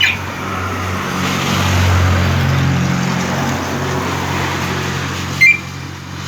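Motorcycle engine idling after a remote start, its note swelling a little about two seconds in. A short, sharp beep sounds near the end, typical of the alarm's chirp.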